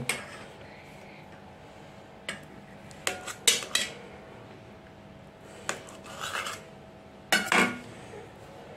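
Steel knife clinking and scraping against a stainless steel plate as it cuts through a soft cake, in short separate strokes, loudest around three and a half seconds in and again near seven and a half seconds.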